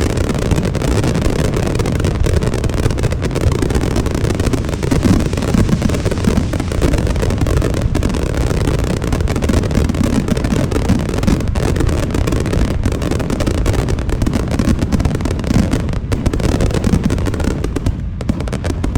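Fireworks barrage: many shells bursting in rapid succession, the reports running together into a continuous low rumble.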